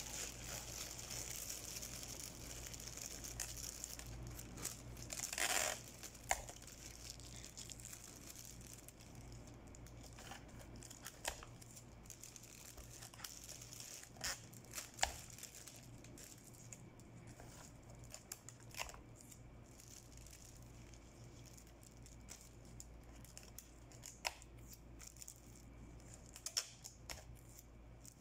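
Faint crinkling and rustling of wrapping material being handled, with scattered small clicks and taps and one louder rustle about five seconds in.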